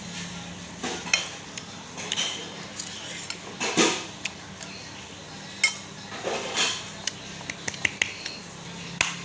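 Eating utensils clinking and scraping against a bowl of noodles, in scattered sharp clicks, with a few short eating sounds between them.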